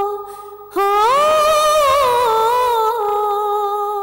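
A wordless sung melody by a single unaccompanied voice on the film soundtrack. It holds a long note, breaks off briefly, then slides up into a new long note about a second in, with small ornamental turns in pitch.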